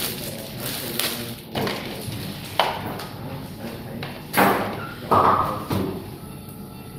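Sterile plastic packs and instruments being handled on a procedure tray: a few sharp knocks and clatters with crinkling, the loudest about four and five seconds in.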